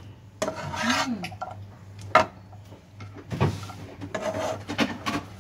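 Metal spatula scraping and knocking against a wok while stirring caramel-coated popcorn, with the popcorn rustling. The sharpest clack comes about two seconds in.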